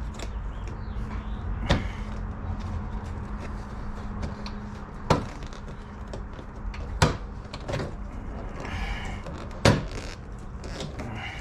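Sharp clicks and knocks of plastic door-trim parts being pushed and worked into place inside a car door, with four louder knocks spread through it, over a steady low hum.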